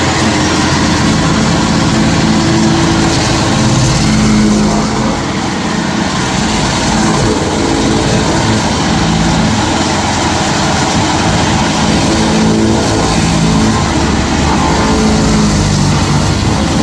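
Stump grinder running steadily under load, its engine note shifting slightly over a dense grinding noise from the cutter wheel.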